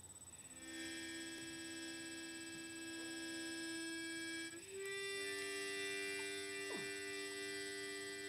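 Harmonica playing two long held chords, the second a little higher than the first, changing about halfway through.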